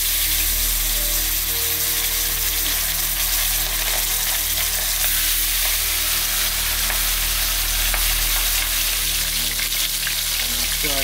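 Pieces of seasoned jack fish frying in well-heated oil in a pan, with a steady sizzle.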